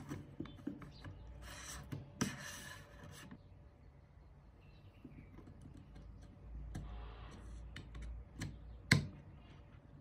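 A thin metal rod sliding and scraping through the hollow shaft of a plastic-and-metal model turbojet kit, with light clicks and rubs from the parts being handled. There are two scraping stretches about two seconds in, and a sharp click near the end.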